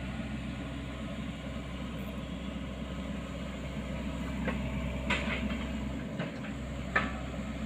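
Sany excavator's diesel engine running steadily, with a few sharp metallic clanks in the second half.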